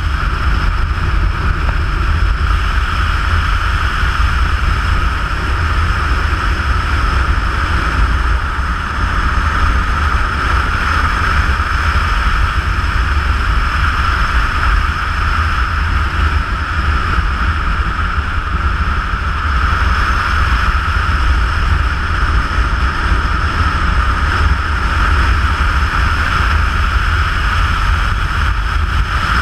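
Steady wind rush on the microphone of a camera riding on a moving vehicle, over a continuous low road-and-engine rumble.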